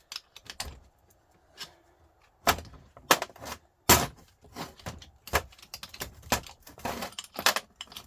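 Irregular metallic knocks, clinks and rattles of a Volvo truck starter motor's metal parts being worked on and handled during dismantling. The loudest knock comes about four seconds in.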